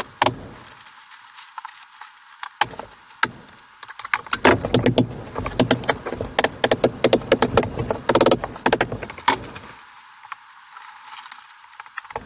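Plastic vapour-barrier sheeting crinkling and rustling as it is handled and fixed to the wall studs, with many sharp clicks and taps, busiest through the middle.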